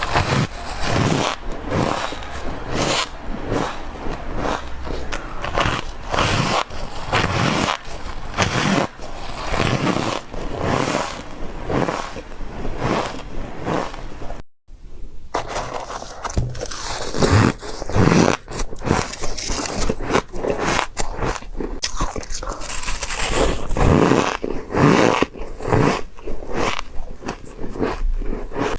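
Close-up bites into ice, one crunching bite after another throughout, with a brief dropout about halfway through.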